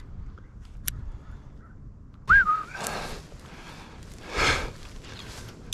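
A man breathing hard from the effort of climbing a steep bank, with two heavy exhales about a second and a half apart. A short high-pitched whistle-like note, rising then dipping, sounds just before the first breath.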